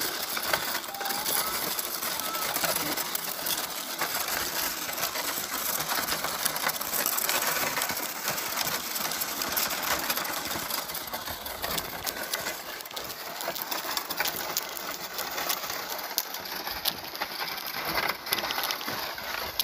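Footsteps crunching on packed snow, a steady run of crisp crunches while walking.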